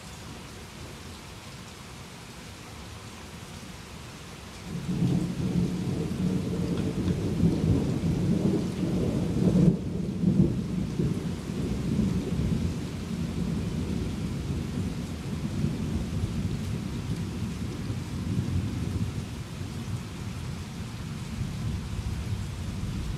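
Steady rain falling, then about five seconds in a long roll of thunder breaks in suddenly. It peaks about halfway through and keeps rumbling over the rain to the end.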